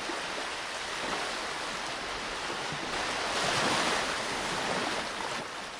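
Sea surf washing onto a sandy beach, a steady rush that swells about halfway through and fades away near the end.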